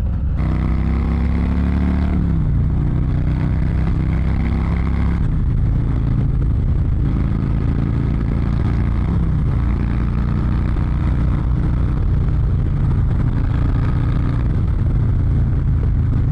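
Harley-Davidson Low Rider ST's Milwaukee-Eight 117 V-twin running under acceleration as the bike rides away. Its pitch climbs and then steps down about two seconds in, and again around nine seconds, as it shifts up. Wind and road noise run underneath.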